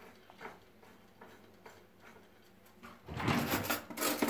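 A few faint light ticks, then about three seconds in a louder dry rustling and scraping as a mix of crushed hazelnuts and sugar is handled by hand.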